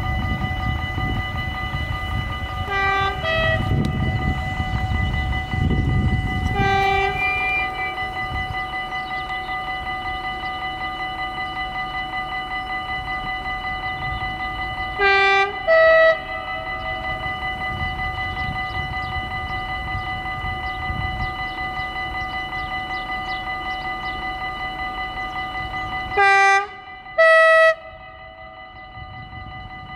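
An approaching NS Koploper intercity train sounds its two-tone horn in short blasts: a pair about three seconds in, a single note near seven seconds, a pair at fifteen to sixteen seconds and a last pair near the end, each stepping from one note to another. Under them the level-crossing warning bell rings steadily.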